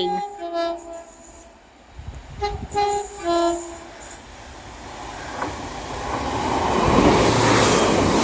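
Class 150 diesel multiple unit sounding a short tune of two-tone horn notes, then running in with a rising rumble and wheel noise that is loudest near the end.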